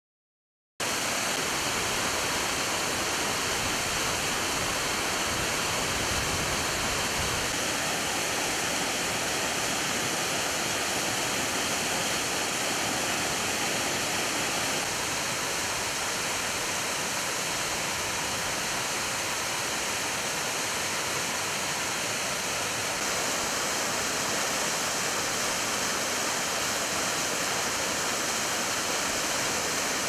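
Waterfall: a steady, even rush of falling water that starts abruptly about a second in.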